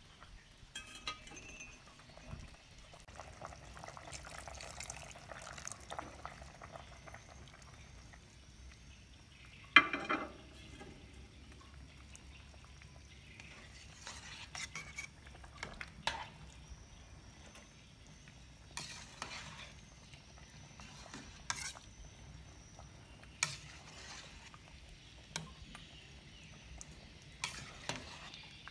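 A metal spoon stirring chicken stew in a stainless-steel pot: a soft sloshing of liquid, with scattered clinks and knocks as the spoon hits the pot. The loudest knock comes about ten seconds in.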